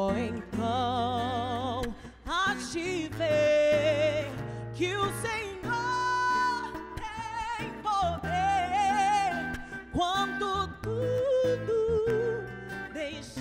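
A woman singing a Portuguese worship song at full voice, with wide vibrato and quick runs between long held notes, over acoustic guitar accompaniment.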